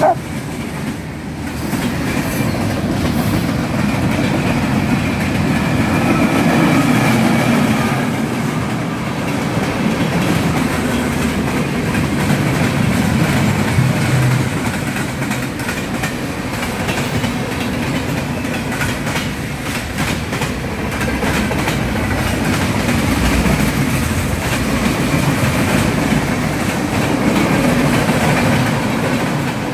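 Freight train of tank cars and boxcars rolling past at steady speed, its wheels on the rails making a continuous, loud noise.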